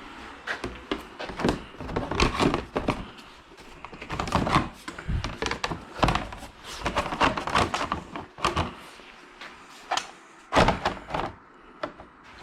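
Irregular knocks, thunks and clatter of a part being handled and pushed into place on a snowmobile, with the heaviest knocks about two, six and ten and a half seconds in.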